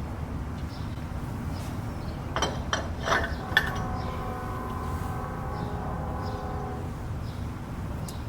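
Metal clinks and knocks as a thick wheel spacer is handled and slid onto the hub studs, four quick strikes, the last leaving a ringing metallic tone that fades over about three seconds.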